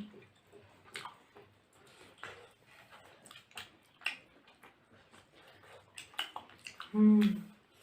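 Close-up mouth sounds of a person eating steamed chicken momo: scattered wet clicks and smacks of chewing. A short, loud voiced sound near the end.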